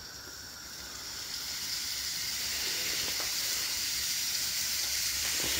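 Fillet steaks sizzling as they go onto a hot ribbed cast-iron skillet, the sizzle growing steadily louder as more meat hits the pan.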